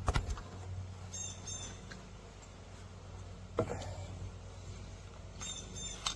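Two sharp pops from the P2P HDP 50 pepper-round pistol, one right at the start and one about three and a half seconds later. The pistol is losing gas, which the owner puts down to a bad seal. Birds chirp in short bursts in the background.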